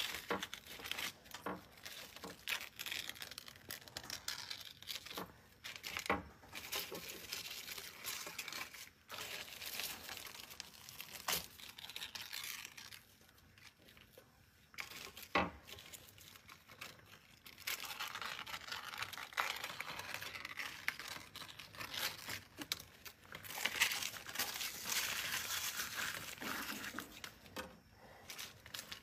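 Aluminium foil crinkling and tearing as gloved hands peel and pull at it: irregular crackling with a few louder sharp snaps, and a quieter stretch about halfway through.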